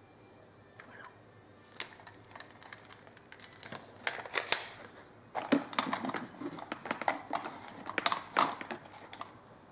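Makeup items being rummaged through and handled: irregular clicks, knocks and rustles of small objects, thickest and loudest in the second half.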